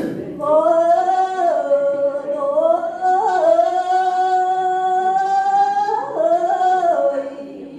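A woman singing a Tày lượn folk melody solo and unaccompanied, amplified through a microphone. It is one long drawn-out phrase: a note held steady through the middle, then bending down near the end.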